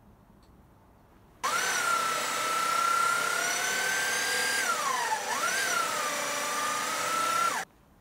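Terratek corded electric drill running a hole saw through a piece of weathered pine, boring a round hole. The motor whine starts abruptly, sags in pitch for a moment about five seconds in under load, recovers, and stops abruptly near the end.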